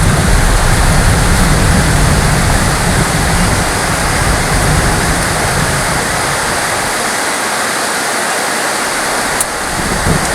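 Heavy rain falling as a steady, dense hiss, with a low rumble underneath during the first half. A single short click comes near the end.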